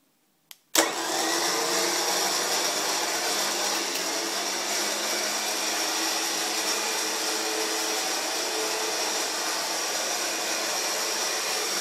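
Warrior Samurai S9500 HS high-speed electric winch running with no load, its motor and gear train paying out the rope quickly. It starts abruptly under a second in and runs steadily.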